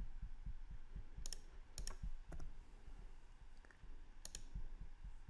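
A few sharp computer mouse clicks, spaced out, with a quick pair of clicks near the end, over faint low thuds.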